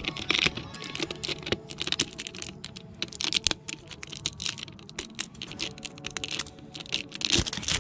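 Thin plastic wrap being peeled and picked off the face of a new spin-on oil filter by fingers: many small, irregular crackles and clicks.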